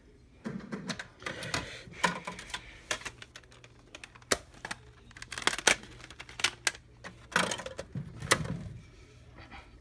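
Handling noise around a CD boombox: irregular sharp clicks and knocks with soft thumps in between, the loudest clicks about four and a half, five and a half and eight seconds in.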